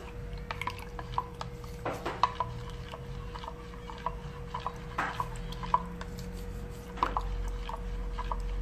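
A metal spoon stirring tapioca starch and water in a plastic measuring jug, making quick, irregular clicks and taps against the jug, to dissolve the starch into a milky mixture. A faint steady hum runs underneath, and a low rumble joins about seven seconds in.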